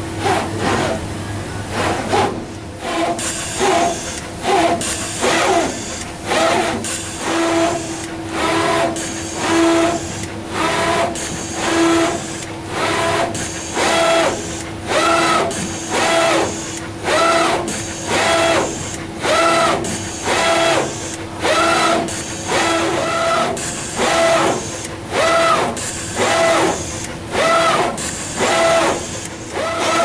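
Essemtec SMD pick-and-place machine placing metal domes: the motors of its moving gantry head whine up and down with each placement move, about once a second, over a steady hum.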